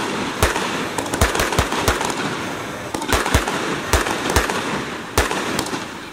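Fireworks going off close by: a rapid, irregular run of sharp bangs, about two or three a second, over a continuous crackling hiss.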